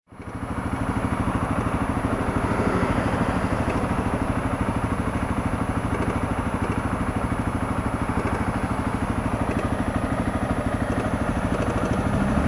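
Honda CRF250L's single-cylinder four-stroke engine idling at a standstill, with a knock and slap from a slack cam chain: its cam chain tensioner has failed. The sound fades in over the first second, then holds steady.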